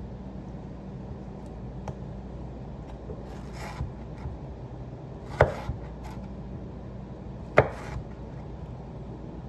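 Kitchen knife cutting tomatoes on a cutting board: a few sharp knocks of the blade on the board, the two loudest about five and a half and seven and a half seconds in, with a short slicing scrape before them.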